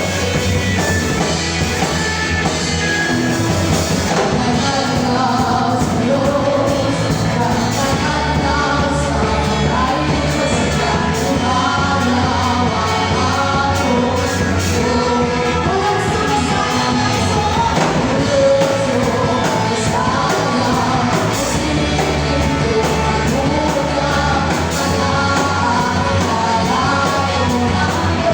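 Live band playing a rock-style song with a lead singer, during a sound check.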